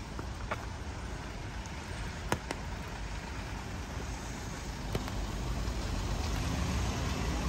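City street traffic noise: a steady rumble and hiss of passing cars, with a few short clicks, growing a little louder near the end.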